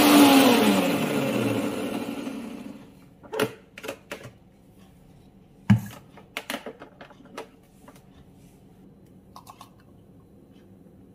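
Electric blender switched off, its motor whine falling in pitch as it spins down over about two seconds. Then several clicks and knocks as the jar and lid are handled, one sharp knock near the middle.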